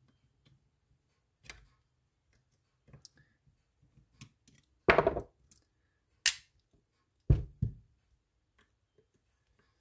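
Screwdriver working the screws out of a Penn Senator II conventional reel's metal frame: scattered small clicks of the tip and turning, with a few sharper knocks about five, six and seven seconds in as the tool and reel are handled.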